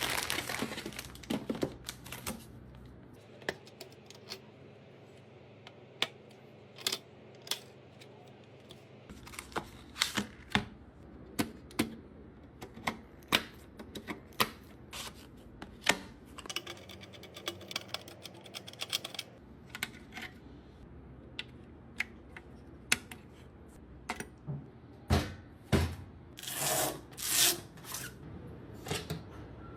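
Irregular sharp clicks and knocks of hard computer parts being handled and fitted together during PC assembly, with a few longer scraping or rustling sounds near the end.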